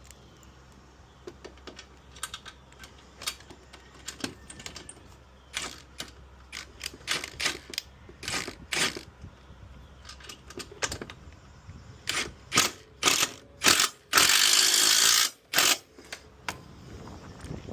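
A ratchet with a Torx bit driving screws home, heard as irregular sharp metal clicks of the pawl. Near the end comes a loud continuous rasp lasting over a second, followed by a few more clicks.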